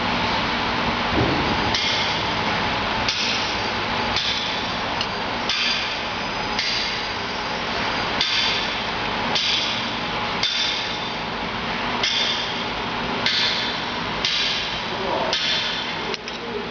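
T8445 brake lathe running with a steady hum, and a high metallic scrape that comes back about once a second.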